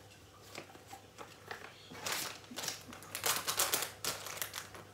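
Rustling and crinkling of small items being handled on a table. There are a few light clicks at first, then dense crackly rustling from about two seconds in.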